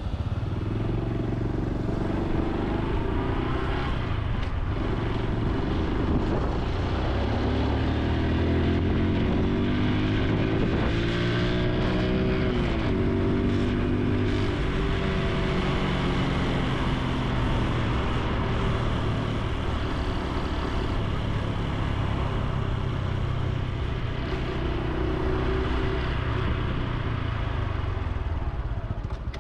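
Honda Super Cub C125's single-cylinder four-stroke engine running on the road, its pitch rising and falling with the throttle. There is a long climb that drops suddenly near the middle, like a gear change.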